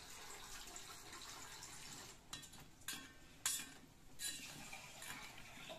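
A steel spoon clinking and scraping against a steel bowl as fried badusha are dipped in sugar syrup, with faint liquid sounds. Faint, with about five short scrapes and knocks from about two seconds in.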